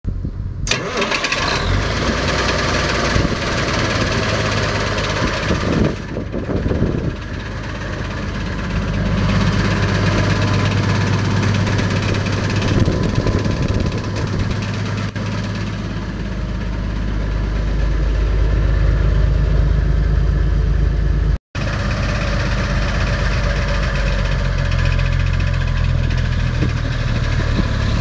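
Ford LN9000 truck's diesel engine running steadily at idle, heard close up in the engine bay with the fan turning.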